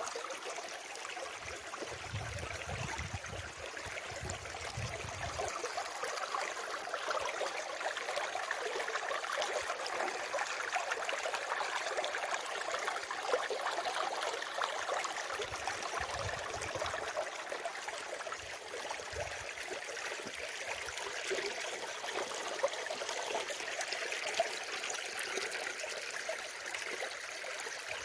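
Water flowing steadily with an even rushing hiss, like a small stream, with a couple of short low rumbles about two seconds in and again past the middle.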